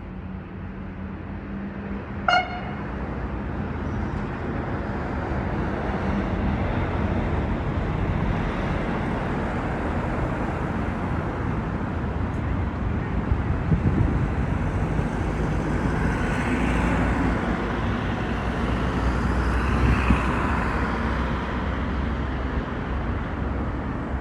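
A short, high horn toot about two seconds in, followed by a vehicle's steady low running rumble that grows louder and holds, with some higher whining tones late on.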